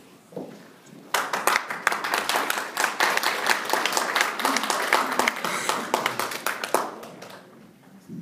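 A small audience clapping, starting suddenly about a second in and dying away near the end.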